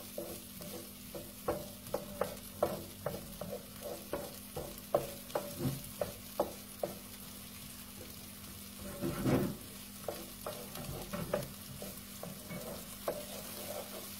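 A spoon stirring onion and tomato sauce in a frying pan, knocking and scraping against the pan a few times a second over a faint sizzle. There is a louder, longer scrape a little past halfway.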